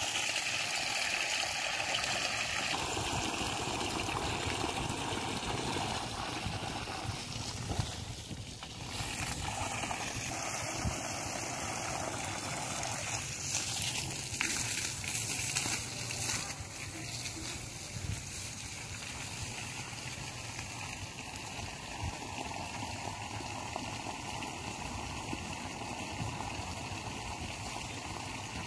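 Water running from a garden hose and splashing onto soil, a steady rushing sound.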